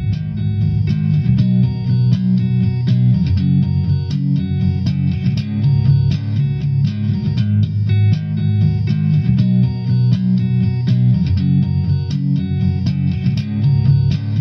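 Background music: plucked guitar over a bass line, notes struck in a steady rhythm.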